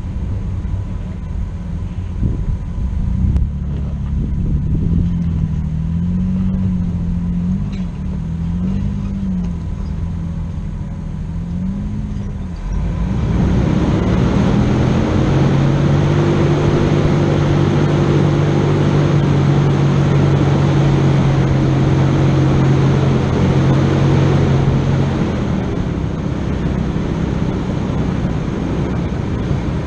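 An off-road four-wheel-drive vehicle's engine, its revs rising and falling for the first dozen seconds. Partway through it climbs to a steady higher pitch with added rushing noise, holds there for about twelve seconds, then eases off near the end.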